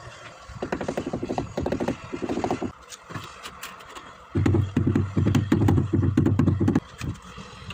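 A rubber mallet tapping a ceramic wall tile again and again, bedding it into the tile adhesive: two runs of quick knocks, several a second, the second run about four and a half seconds in, louder and deeper.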